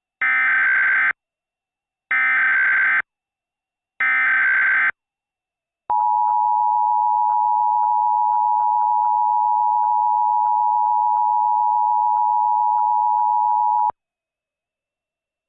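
Emergency Alert System alert tones: three one-second bursts of SAME header data, about two seconds apart, then the two-tone attention signal held steady for about eight seconds before cutting off.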